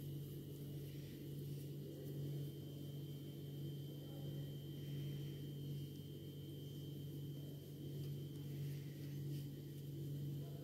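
Steady low hum with a faint high-pitched whine above it, swelling and fading gently; no distinct handling sounds stand out.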